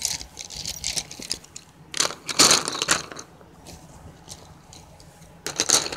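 Wooden U Brands colored pencils clicking and clattering against each other as a handful is spread out on a board. The rattling comes in bursts: scattered clicks at first, a dense rattle about two seconds in, and another near the end.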